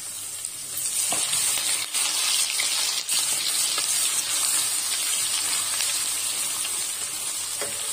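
Crushed garlic and curry leaves sizzling steadily as they fry in hot sesame oil on a low flame, with a few light taps of a wooden spatula stirring them.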